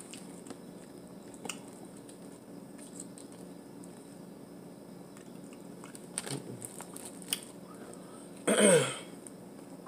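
Quiet eating sounds as a boiled crawfish and shrimp are peeled by hand and chewed: a few faint soft clicks and shell sounds over a steady low hum. Near the end comes one short, loud vocal sound that falls in pitch.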